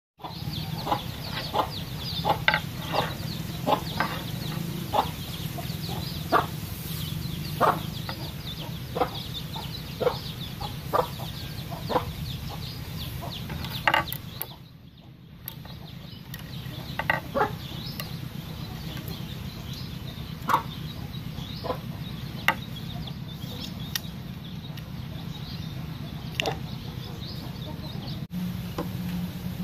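Domestic fowl clucking: short, sharp calls about once a second over a steady low hum, with a brief drop-out about halfway through.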